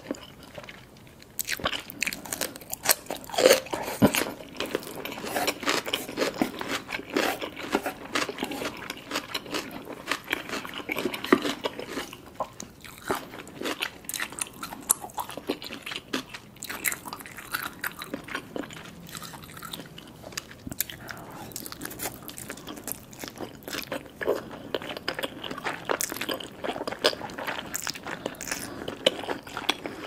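Close-miked eating sounds: crisp crunching and chewing of a raw cucumber spear, loudest in the first dozen seconds. Then softer, sparser chewing of cheese-covered spicy noodles and rice cakes.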